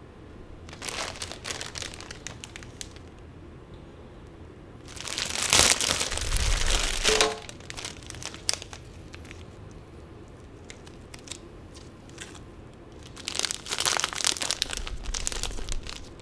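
Thin plastic snack wrappers crinkling in three bursts, the loudest and longest in the middle, as individually wrapped puffed corn sticks are handled and one is torn open near the end.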